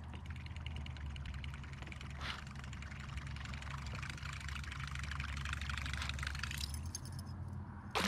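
Fishing reel cranked fast, its gears giving a fine rapid whirring rattle over a low steady rumble; the reeling stops about seven seconds in.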